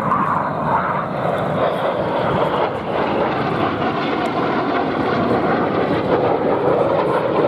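Jet noise from Red Arrows BAE Hawk T1 jets in display flight overhead: a steady, even rushing sound without distinct tones.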